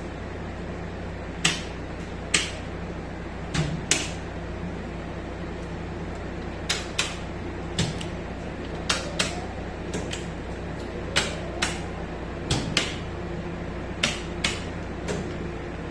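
Steady machinery hum from a running generator plant, broken by about fifteen sharp clicks and knocks at irregular intervals. A few of the clicks are followed by a short rising tone.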